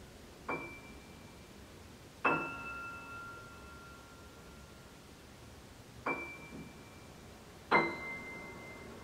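Grand piano: four sparse high notes struck one at a time, each left to ring out and fade; the second and the last are the loudest.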